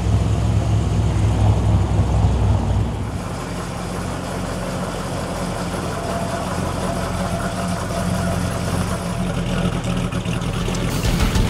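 V8 muscle car engine idling with a deep steady rumble. About three seconds in the deepest part of the rumble drops away, leaving a quieter steady engine sound.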